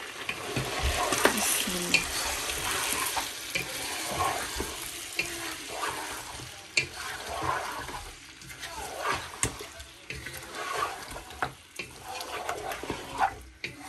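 Spoon stirring and scraping food frying in a pot, with a steady sizzle and frequent sharp clicks of the spoon against the pot.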